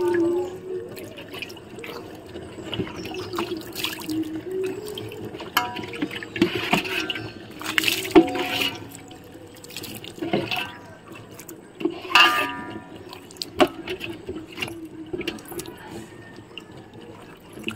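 Water being poured over a person bathing, splashing and spattering off the body onto a concrete floor in several uneven bursts, over a low wavering hum.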